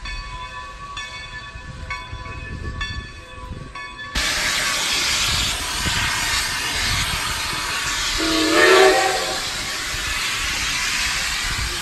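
Steam locomotive, a 2-10-0, with a loud steam hiss starting suddenly about four seconds in and a short whistle blast over it near the middle. Before the hiss there is a fainter train sound with steady ringing tones on a regular beat.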